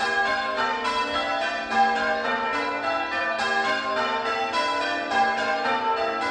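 St Petrock's ring of six church bells (five 1789 Pennington bells and a 1921 Taylor treble, tenor about 8 cwt in G) being rung in changes: a steady run of strikes, one bell after another, each ringing on over the next. The bells are odd-struck.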